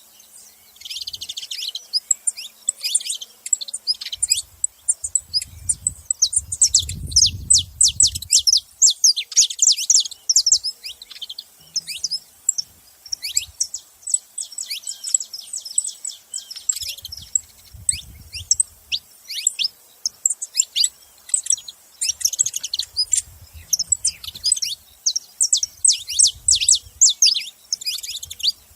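Saffron finches chirping and singing together in fast, busy runs of high notes, with faint low rumbles now and then underneath.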